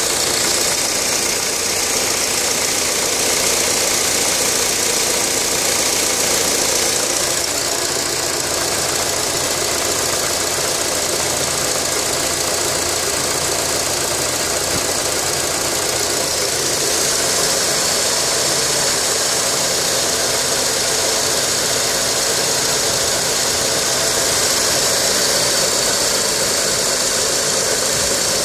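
Honda K20A6 2.0-litre inline-four engine running steadily with no revving, carrying the abnormal noise the owner calls a bad sound.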